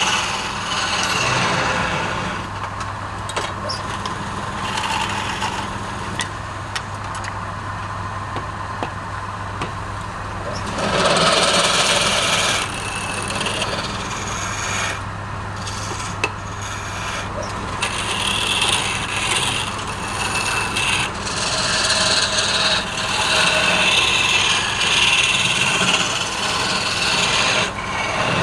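Wood lathe running with a steady hum while a turning tool cuts and scrapes the spinning wood. The cutting comes in uneven passes, louder about 11 seconds in and again from about 18 seconds on.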